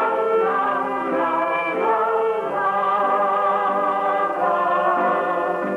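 Closing soundtrack music: sustained chords with wordless choir-like voices, heard with the narrow, lo-fi sound of an old film soundtrack.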